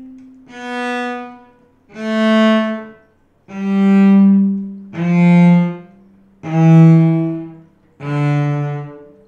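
Cello playing a descending C major scale, one bowed note at a time, each note swelling and fading with a short stop of the bow before the next. This is a stopped-bow exercise for loose, flexible bow fingers.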